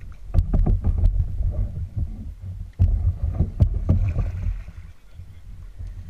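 Canoe paddling: the paddle blade splashing in the water beside the hull, with sharp knocks in a cluster near the start and again about halfway, over a steady low rumble.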